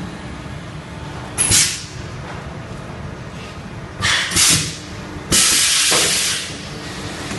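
Vacuum and gas-flush tray sealing machine running a sealing cycle, giving sharp air hisses: a short one about a second and a half in, two close together around four seconds in, and a longer one lasting about a second from just after five seconds. A steady machine running noise sits underneath.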